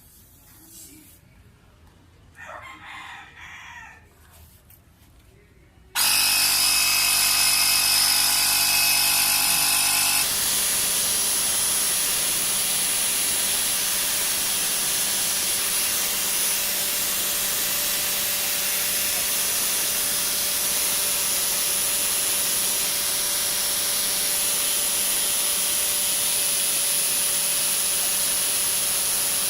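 Workzone Titanium 20 V cordless air compressor switching on suddenly about six seconds in and running steadily, inflating a flat tyre. Its tone shifts a few seconds after starting, then holds even.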